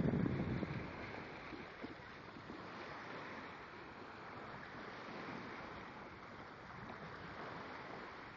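Small waves washing steadily onto a sandy beach in shallow surf. A louder low rumble fills the first second, then fades.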